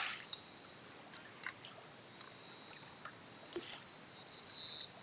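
A few brief, scattered splashes and drips of water from a hooked eagle ray flapping at the surface, between stretches of quiet.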